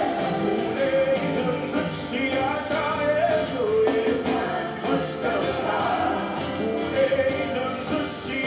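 Live worship band playing, with a voice singing a melodic line over it.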